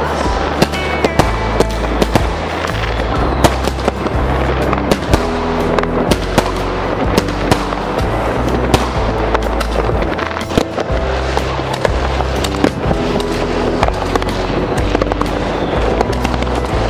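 Fireworks going off: a dense run of sharp bangs and crackles in quick succession, over background music with a steady bass line.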